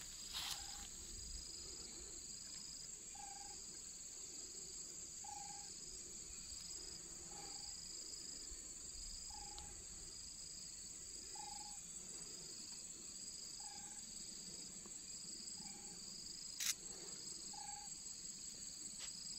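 Insects chirping steadily in a high trill, with a pulsed chirp repeating about once a second and a short lower call about every two seconds. A single sharp click near the end.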